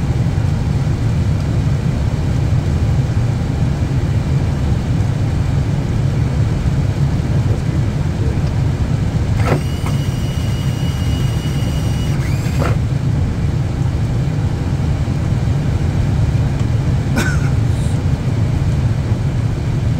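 Steady airflow and engine noise in an airliner's cockpit on approach, a deep even rumble. About nine seconds in, a high steady electronic tone sounds for about three seconds and stops abruptly, and a short click comes near the end.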